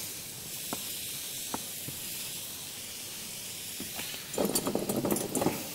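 Hands seasoning and handling chunks of raw beef shoulder on a wooden cutting board: a few soft clicks, then about a second of rustling and crackling near the end, over a steady faint hiss.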